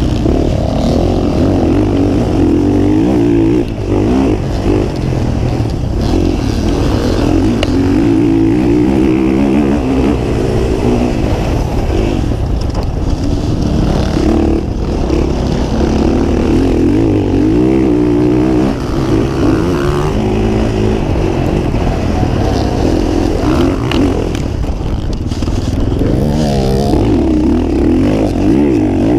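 Dirt bike engine heard up close from the rider's own bike, revving up and down continuously with the throttle while riding a rough off-road trail. It briefly eases off about 3.5 s in and again around 18.5 s.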